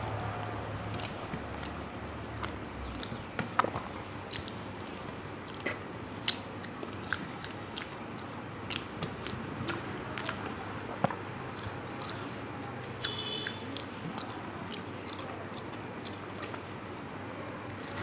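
A person chewing a mouthful of rice and curry close to the microphone, with wet mouth sounds and scattered sharp clicks. A low hum stops about three seconds in.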